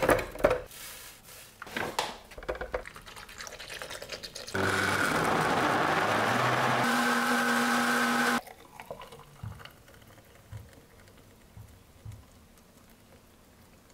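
A few knocks and clicks, then a NutriBullet countertop blender runs for about four seconds, blending frozen bananas and strawberries into a smoothie, its pitch changing partway through before it cuts off suddenly. Faint scattered knocks follow.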